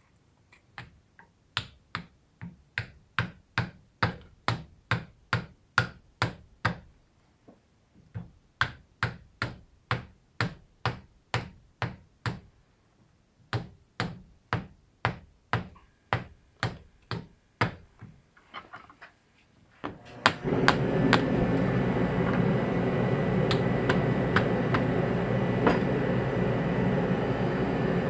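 Repeated hammer blows on metal, about two a second, in three runs with short pauses between them. About twenty seconds in, a steady mechanical noise with a thin whine starts up and keeps running.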